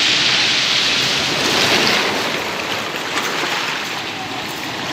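Sea surf washing onto the shore: a steady rush of breaking waves, a little fuller in the first couple of seconds and easing toward the end.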